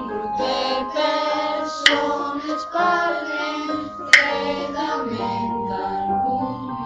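Song with singing voices over instrumental backing, punctuated by a sharp hit about every two seconds.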